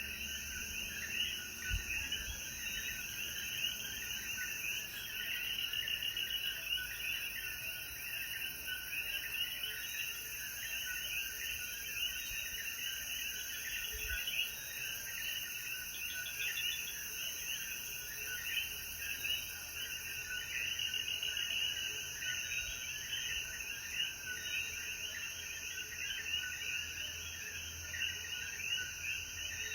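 A dense chorus of Puerto Rican coquí frogs calling after rain: many overlapping short rising chirps, steady throughout, over a constant high-pitched drone.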